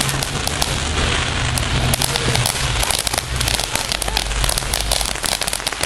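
Power Surge ground fountain firework spraying sparks, a steady hiss full of crackling pops that grow thicker about two seconds in.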